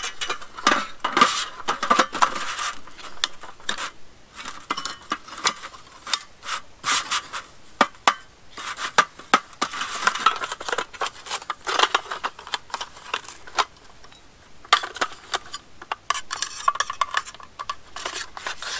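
Aluminium slats and support rods of a GSI Outdoors folding camp table clinking and scraping as the table is taken apart and the slats folded up: many light, irregular metal clicks and rubs, with a quieter stretch about two-thirds of the way through.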